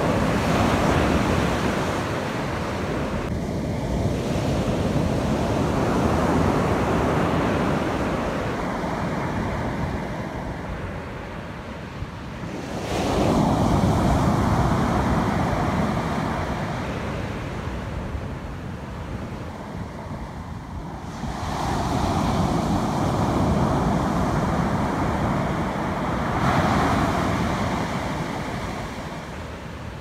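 Pacific Ocean surf breaking and washing up a sandy beach: a steady rush that swells and fades in three long surges, building about a second in, again around the middle, and again two-thirds of the way through.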